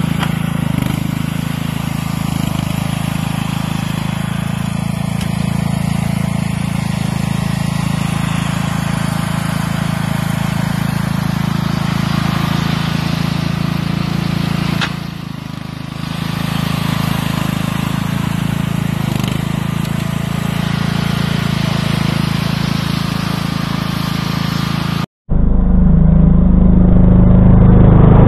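Riding lawn tractor engine running steadily while pushing snow with a front plow blade, dipping briefly in level about halfway through. About three seconds before the end, the sound cuts to a louder, duller recording of a garden tractor engine running close by.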